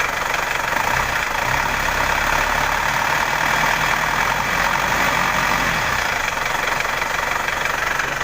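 Isuzu Hi-Lander's engine running steadily at idle, with the alternator charging normally at about 13.5 volts.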